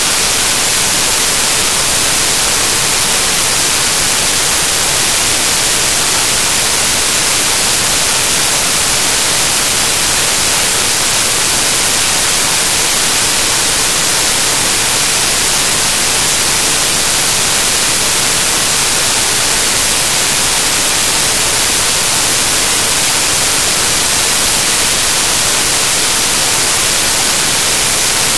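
Loud, steady static hiss, brightest in the high end and unchanging, with no other sound: the noise of a corrupted audio track.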